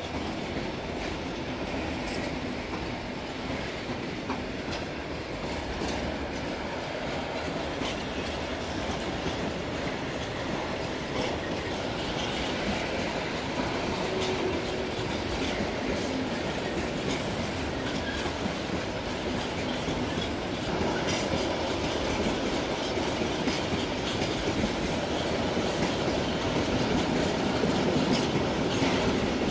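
Freight tank wagons rolling past close by: a steady rumble of wheels on rail with irregular clicks from the rail joints, growing a little louder near the end.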